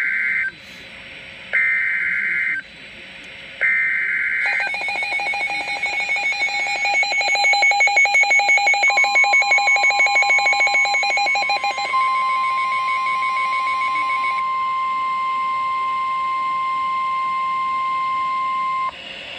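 Emergency Alert System signal for a severe thunderstorm warning: three short warbling data bursts about a second apart, then a fast pulsing alarm beep. Over the beep comes the steady single-pitch warning alarm tone, which carries on alone after the pulsing stops and cuts off shortly before the end.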